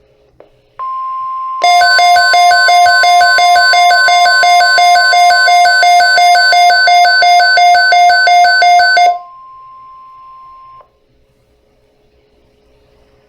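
NOAA Weather Radio 1050 Hz warning alarm tone, a steady single tone sounding for about ten seconds before cutting off. For most of that time a much louder weather radio receiver alarm beeps over it, about four beeps a second, set off by the tone.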